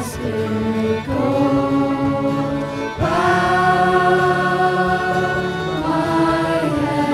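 A small group of young voices singing in harmony, holding long chords that move to new notes about a second in, again about three seconds in, and once more near the end.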